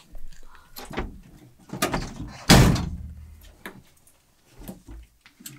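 The van's side door slammed shut about two and a half seconds in, heard from inside the van, among smaller knocks and bumps as the driver climbs into the front seat.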